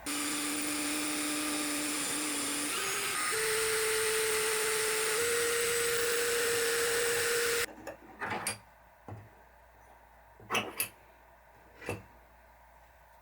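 Small electric power tool running at a steady pitch that steps up twice as the speed is raised, then stops suddenly about two-thirds of the way through. A few sharp taps follow.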